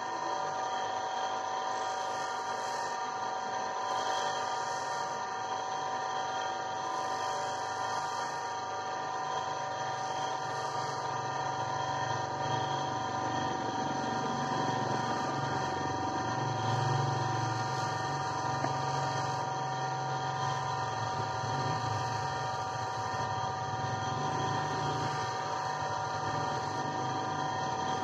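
An electric motor on a gemstone grinding machine runs steadily with a hum of several fixed tones. An agate stone held on a stick is worked against the small spinning white wheel, and a rougher grinding noise builds from about halfway through.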